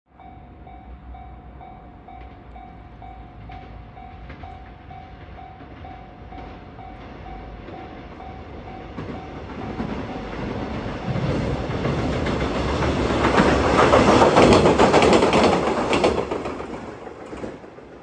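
A level-crossing alarm rings steadily at about two strokes a second. Then a two-car JR KiHa 120 diesel railcar set approaches, grows loud and passes close by about 13 to 16 seconds in, its wheels clicking over the rail joints, and fades away near the end.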